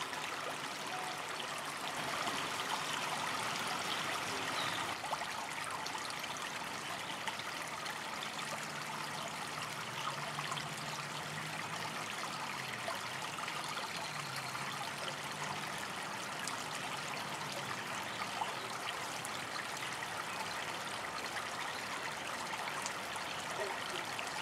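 Small creek trickling and burbling over rocks: a steady, even rush of running water.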